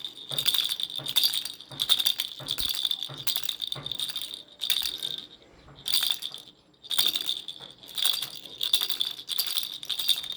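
Baby rattle toy shaken in repeated, rhythmic shakes, each giving a bright, jingling rattle, with two short pauses between about five and seven seconds in.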